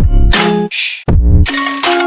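Electronic background music with a heavy bass beat and bell-like synth notes; about a second in there is a short swoosh and a brief break before the beat comes back.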